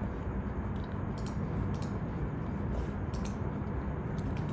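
Scattered short clicks of a computer being operated, about eight spread through, over a steady low hum and hiss of room and microphone noise.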